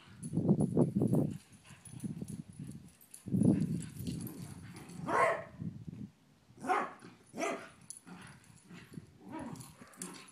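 Dogs barking while playing and chasing, with several short barks in the second half. Louder low rumbling bursts come at the start and about three seconds in.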